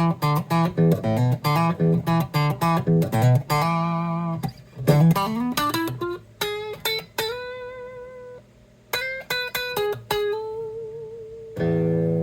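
Gibson R8 Les Paul electric guitar played through a Roland Cube 30 practice amp with the pickup selector in the middle position. It opens with a quick run of picked notes, then single held notes with vibrato, and a chord is struck near the end and left ringing.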